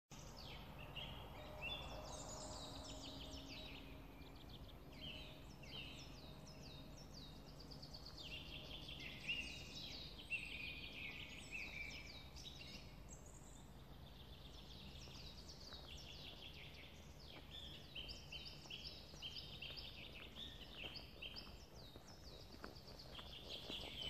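Songbirds singing and calling throughout, many short chirps and trills, over a quiet steady outdoor rumble. Near the end, footsteps on a gravel track come close.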